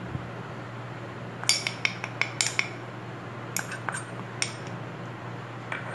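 Metal spoon clinking against a small ceramic bowl as spice is tipped into a steel mixer jar: a quick run of clinks about one and a half seconds in, then a few more a couple of seconds later.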